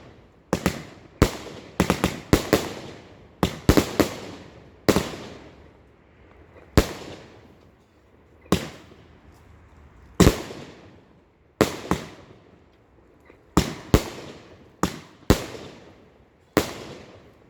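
Punisher 25-shot 1.3G firework cake firing its shots in sequence: sharp bangs at irregular intervals, some in quick pairs. Each bang trails off in a fading tail before the next.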